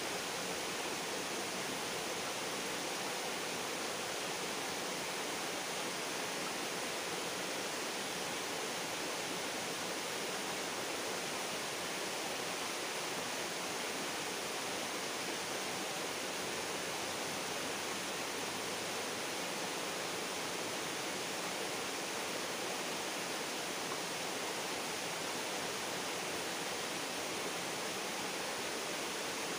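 Steady rushing of flowing river water, an even hiss without breaks.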